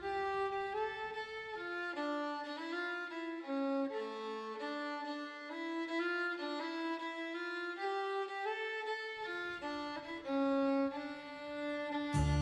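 Background music: a violin playing a slow melody of held notes that step up and down, with lower strings underneath at times. A deep low note comes in near the end.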